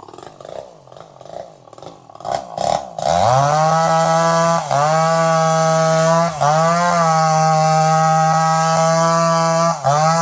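Chainsaw engine pulsing unevenly at low revs, then opened up to a loud steady full-throttle run about three seconds in, with the revs dipping briefly and recovering three times.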